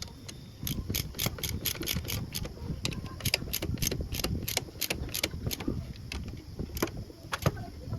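Hand tools working on motorcycle engine parts: a run of sharp metallic clicks and clinks, several a second and irregularly spaced.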